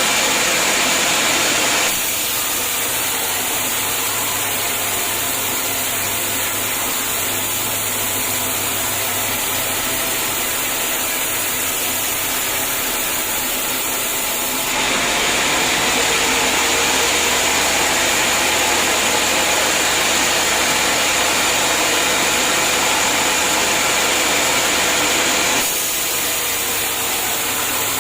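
Sawmill saw running and cutting through hard acacia wood, a loud continuous machine noise. It drops in level about two seconds in, rises again about halfway through and drops once more near the end.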